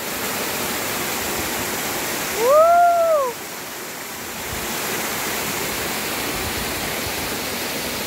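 Waterfall rushing steadily down a rock face and spreading across a sloping rock slab. About two and a half seconds in, a short pitched vocal sound rises and falls over the rush of the water, lasting under a second.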